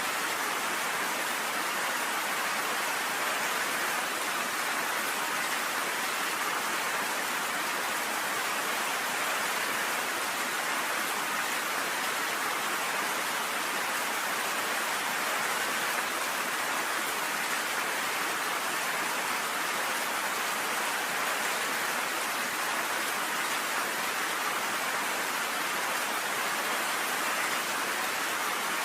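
Steady rain falling on a cabin porch, an even, unbroken hiss with no thunder.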